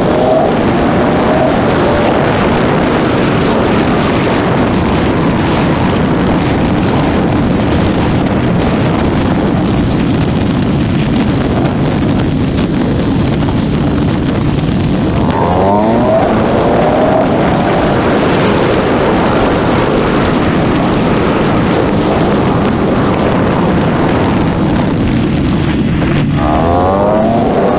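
Husqvarna 701's single-cylinder engine running at road speed under heavy wind rush on the microphone. The engine note rises in pitch about halfway through and again near the end as the bike accelerates.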